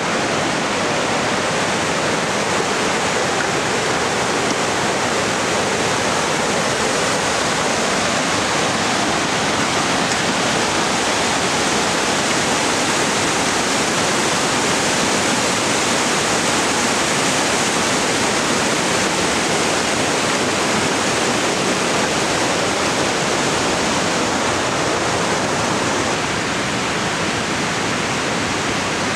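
Glacial meltwater of the Carbon River rushing over boulders: a loud, steady rush of white water.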